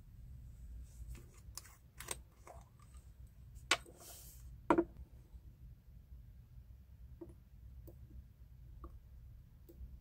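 Glass ink bottle handled and its screw cap unscrewed and set down, with a few sharp clicks and a brief scrape, the loudest clicks about four and five seconds in. Then a few small ticks of a metal dip-pen nib against the bottle's glass rim as it is dipped in ink.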